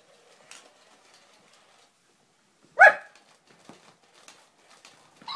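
One short, loud bark about three seconds in, among faint clicks and rustles.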